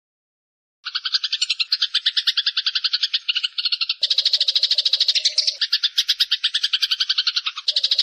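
Rapid, even pulsed trill, about a dozen pulses a second, from a songbird 'mastering' recording. It starts about a second in after a short silence and is spliced into segments that change tone abruptly, some with a low hum under the trill.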